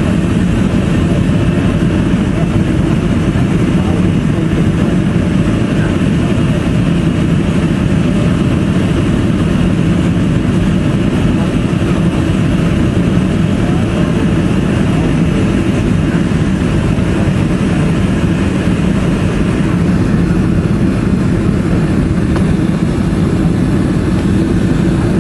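Steady jet engine and airflow roar heard inside the cabin of a Boeing 707, descending on approach with its flaps extended. The upper hiss eases slightly about twenty seconds in.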